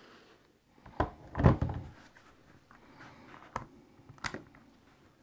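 Plastic knocks and clicks from the housing of a Makita DTW1002 cordless impact wrench being pulled apart, with a cluster of clunks about a second and a half in and a few lighter clicks later.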